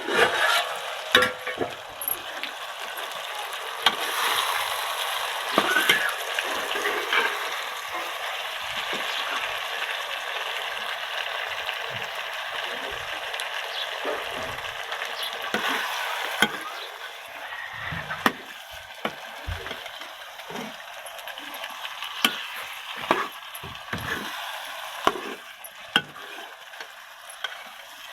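Food sizzling in hot oil in a cooking pan while a spoon stirs it, with frequent sharp clicks and knocks of the spoon against the pan. The sizzle is strongest in the first half and eases off later.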